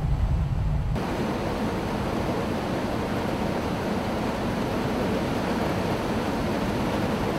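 Steady rush of wind and rotor noise on the open rear ramp of a V-22 Osprey tiltrotor in flight. About a second in, a low rumble gives way to a broader, hissier rush.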